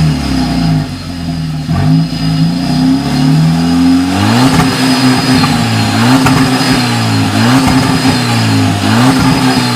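A VW Golf Mk6 1.4 TSI twincharged four-cylinder engine through a muffler-delete exhaust with Akrapovic tips, revving up and down again and again, its pitch rising and dropping about every second and a half.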